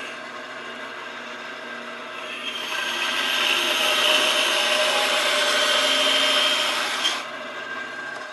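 Bandsaw running, its blade cutting through a block of wood from about two and a half seconds in until about seven seconds, louder and hissier while in the cut; the saw runs free before and after.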